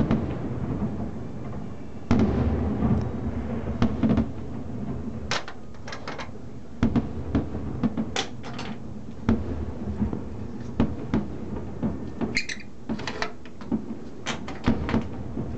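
Aerial firework shells bursting in a display: a run of irregularly spaced bangs, each trailing a short echo, over a steady low rumble.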